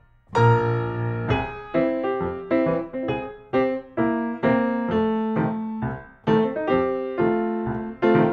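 Background piano music: a melody of single notes and chords at a steady, moderate pace, coming back in after a brief pause right at the start.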